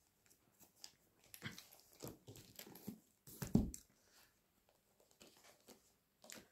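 Faint rustling and handling noise: a cluster of soft crinkles and knocks between about one and four seconds in, the loudest a dull knock near the middle.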